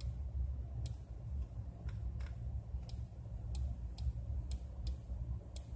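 Computer mouse clicking about ten times at an uneven pace while the globe on screen is dragged around, over a steady low hum.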